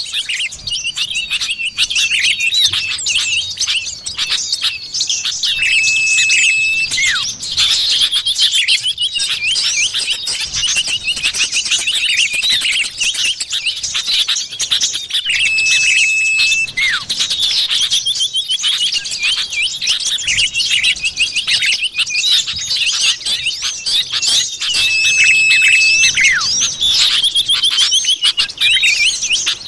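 Common iora (cipoh) calls played as a bird-luring recording: dense, rapid chirps and trills, with a long level whistle that comes back about every ten seconds as the recording loops.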